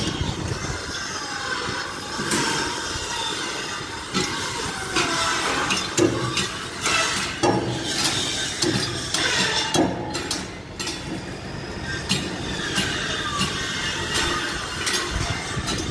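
Building site noise from a steel-framed deck under construction: repeated sharp metal clanks and knocks over a steady machine din, with squeals that fall in pitch.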